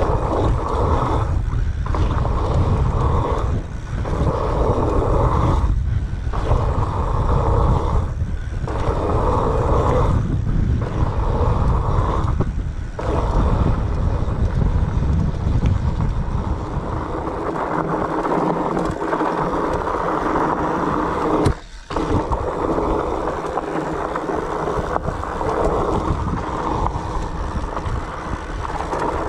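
Mountain bike rolling fast over a dirt singletrack: wind buffeting the camera microphone over the tyres' rumble and scrape on the dirt. The noise is steady, briefly dropping out once about three-quarters of the way through.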